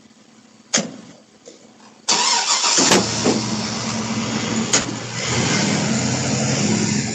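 A sharp knock, then about two seconds in a vehicle engine starts suddenly and keeps running steadily, with a couple of further clicks over it.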